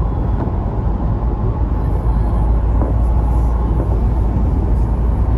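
Steady wind buffeting and road noise in the open cabin of a 1999 Mercedes SLK 230 Kompressor cruising with its roof down.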